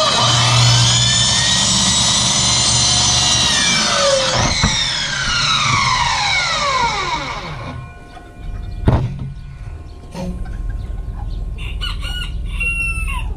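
Electric miter saw cutting 2-inch PVC pipe, its motor whine rising and then falling as the blade spins down, stopping about eight seconds in. A sharp knock follows about a second later, and a rooster crows near the end.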